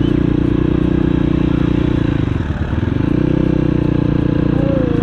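Motorcycle engine running steadily while riding, heard from the rider's own bike; the sound briefly drops about halfway through, then picks up again.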